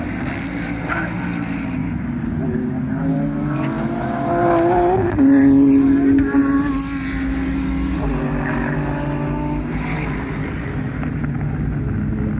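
GT race car engines running on track, several cars overlapping. About four seconds in, one engine rises in pitch, then drops to a loud steady note for about a second and a half, the loudest moment.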